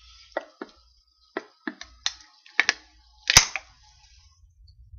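Aluminium beer can being worked open for shotgunning: a string of sharp taps and clicks over a faint hiss, the loudest a sharp crack about three and a half seconds in.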